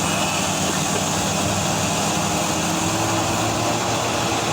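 Large diesel engines of heavy mining machinery (a haul truck and a hydraulic excavator) running steadily, with a constant dense mechanical noise and no distinct impacts.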